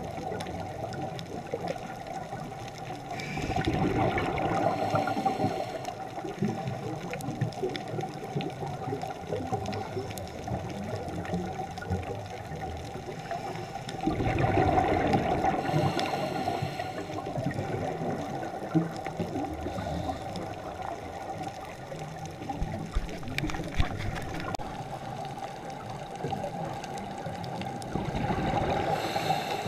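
Underwater sound of a scuba diver's regulator exhaling bubbles in three bubbly rushes about 11 to 14 seconds apart, one for each breath out, over a steady watery hiss with faint crackling.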